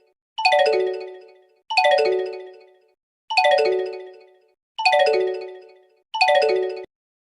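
Samsung Android phone ringtone for an incoming call: a quick run of falling notes, repeated five times about every second and a half, the last one cut off abruptly near the end.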